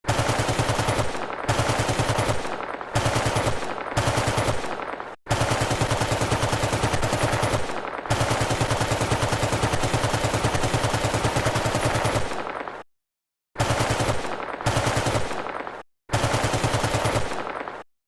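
Automatic machine-gun fire played as a sound effect: rapid shots in a series of bursts, most about a second long, with one long burst of several seconds in the middle.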